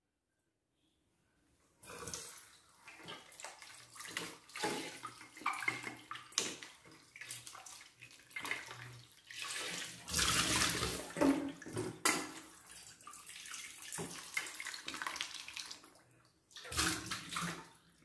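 Kitchen tap water running and splashing into a steel bowl in a stainless-steel sink as eggplants are rubbed and rinsed, starting about two seconds in. The splashing comes and goes unevenly, with an occasional sharp knock, and is loudest about ten seconds in.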